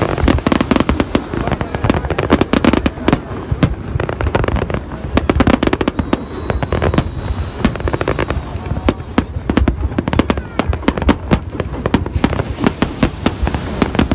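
Aerial fireworks display: a dense, continuous run of sharp bangs and crackles from shells bursting, over a steady low rumble.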